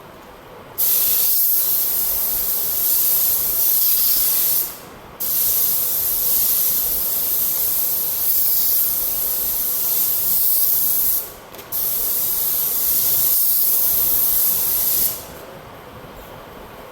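Air blower hissing in three long blasts, blowing built-up water out of a split-rim tire, with two short breaks between them.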